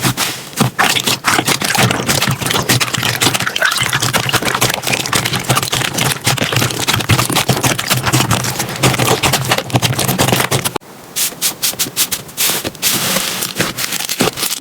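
Slime being squeezed, pressed and stretched by hand, making dense crackling and popping clicks. About eleven seconds in it changes to a sparser crackle.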